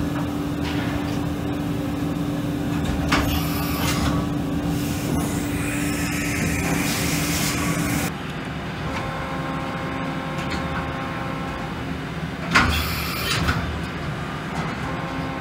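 A Doosan VC400 vertical machining center running through an automatic tool change on its 40-tool changer. A steady machine hum drops away about halfway through. The tool changer and spindle head make several clunks, the loudest near the end, and there is a brief hiss in between.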